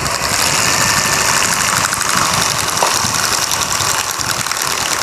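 Electric hand mixer running steadily, its beaters churning thick cooked choux-style dough as an egg is beaten in.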